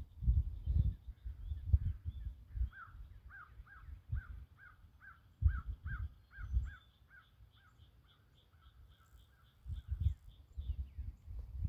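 A bird calling a long series of short, repeated notes, about two to three a second, with a fainter, faster, higher series joining about halfway through. Irregular low thumps and rumbling, louder than the calls, come and go throughout.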